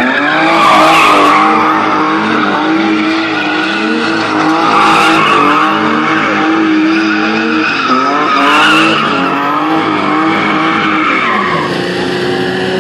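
A car drifting in tight circles, its tyres screeching and its engine held at high revs. The screech surges about three times, and the revs rise sharply at the start and again near the end, then fall away.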